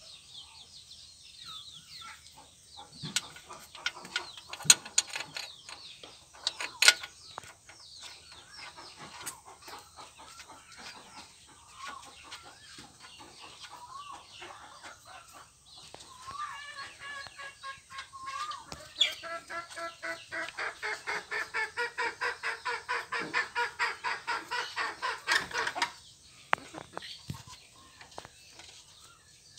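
A chicken clucking in a fast run of repeated calls, about four to five a second, through the second half. Earlier come scattered sharp clinks and knocks of metal parts being handled.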